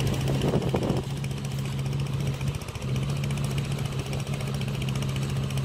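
Caterpillar hydraulic excavator's diesel engine running with a steady hum and fast ticking clatter. A rougher burst of rattling comes in the first second, and the engine note dips briefly near the middle.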